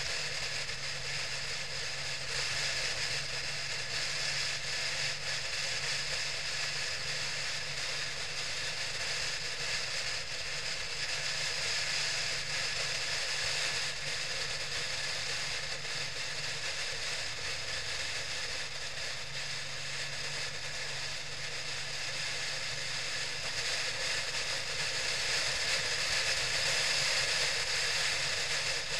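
Steady wind and road noise with a low engine hum from a motorcycle cruising at an even speed, as picked up by a mounted action camera.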